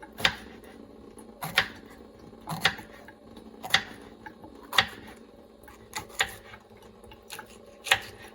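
Kitchen knife cutting a pepper on a cutting board: sharp knocks of the blade striking the board, about one a second and slightly irregular.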